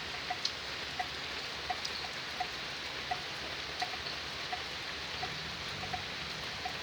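Steady hiss of rain, with a short pitched chirp repeating regularly about every three quarters of a second.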